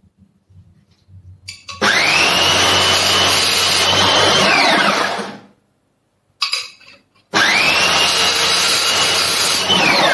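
Homemade belt sander driven by a Bosch GWS 060 angle grinder, run twice in short bursts. Each time the motor's whine rises quickly, holds steady for about three seconds with the sanding belt running, then falls away as it is switched off. There is a light knock between the two runs.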